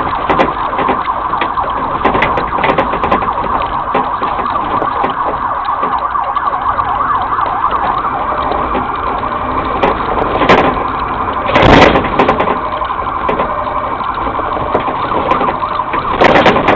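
Police siren sounding steadily throughout, with three short loud bursts of noise breaking in, the last near the end.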